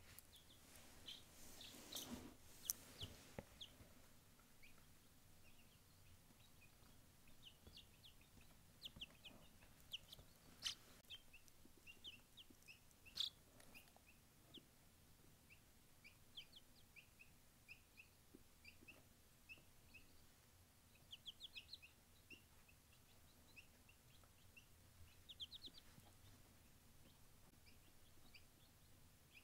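Faint peeping of a showgirl silkie chick: short high chirps scattered throughout, with two quick runs of rapid peeps about three quarters of the way in. A few sharp knocks in the first few seconds.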